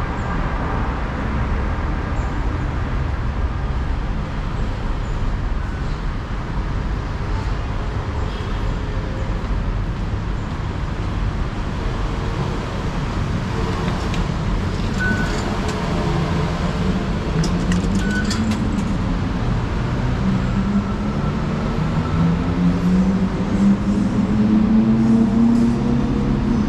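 Steady hum of a transit station concourse, with two short electronic beeps from the card-tap fare gates about halfway through. A low traffic drone rises and grows louder near the end.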